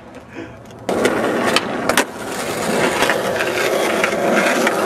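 Skateboard wheels rolling over rough asphalt. The rolling starts suddenly about a second in and carries on as a steady loud grind, with a couple of sharp clicks from the board.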